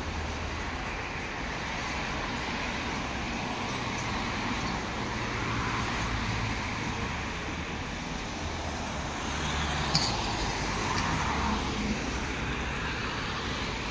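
Turboprop aircraft flying over: a steady, broad rumble with a low drone that swells and fades. A brief click about ten seconds in.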